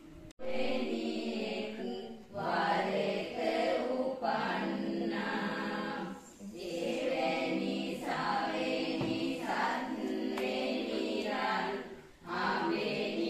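A group of voices chanting devotional verses together in unison, in phrases of about two seconds with short pauses between them.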